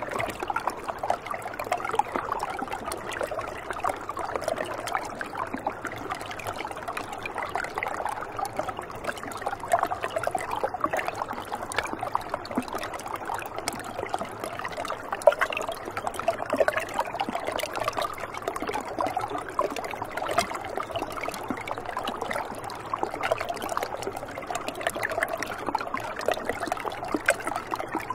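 Shallow river water running over stones beneath edges of ice: a steady gurgle made of many small, quick splashes, with no pauses.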